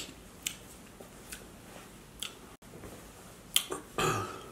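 Dorito tortilla chips crunching as they are chewed: a few sharp crackles about a second apart, then a short rustle of a paper napkin near the end.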